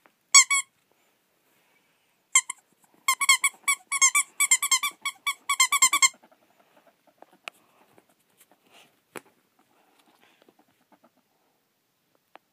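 Short, high squeaks: one near the start, then a quick run of about fifteen from about two to six seconds in, during ferret play. After that, only faint rustling and a few light ticks.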